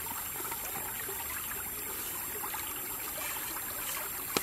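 Shallow stream running over rocks, a steady babble of water, with a single sharp click near the end.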